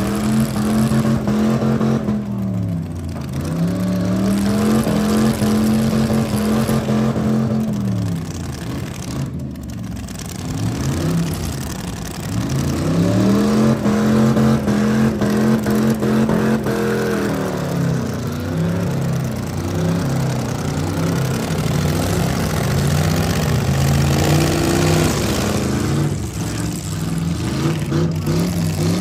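A demolition derby car's V8 engine revving hard in repeated surges: the note climbs, holds at high revs for several seconds and drops away three times, then wavers up and down for the last ten seconds or so.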